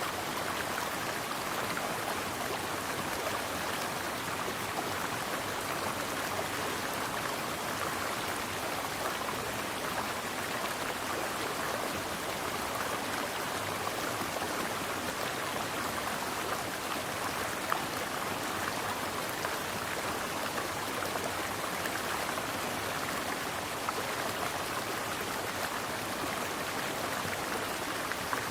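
Mountain stream flowing steadily, an even rushing and splashing of water with faint droplet ticks.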